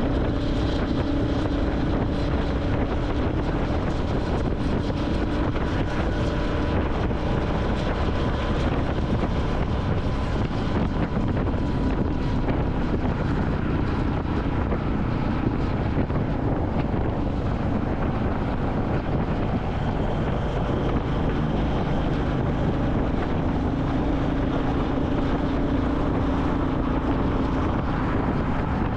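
Royal Enfield Classic 350's single-cylinder engine running steadily while riding, with wind rushing over the microphone. The engine note fades back a little in the middle and returns strongly near the end.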